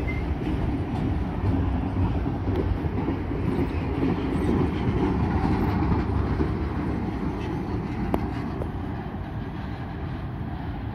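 Heritage passenger carriages rolling past at speed, their wheels rumbling and rattling on the rails. The noise is loudest midway, then fades as the last carriage moves away, with a couple of sharp clicks about eight seconds in.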